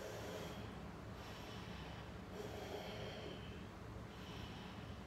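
Slow, audible breathing of a person holding a yoga stretch, a few soft breaths in and out.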